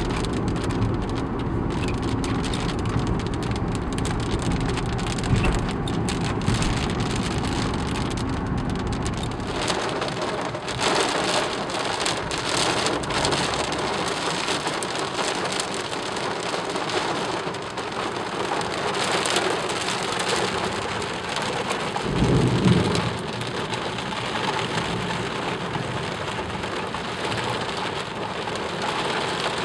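Heavy thunderstorm rain drumming on a car's roof and windows, heard from inside the car. A low rumble runs under it for about the first third and then drops away, and a short low thump sounds about three-quarters of the way through.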